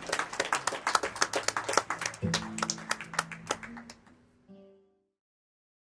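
Applause from a small audience, many separate handclaps, thinning out and fading away. About two seconds in a held musical chord of several steady notes comes in under the claps, and a second short chord sounds briefly before everything stops.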